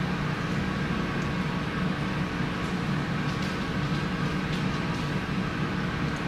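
Steady low mechanical hum of room background noise, even throughout, with no speech.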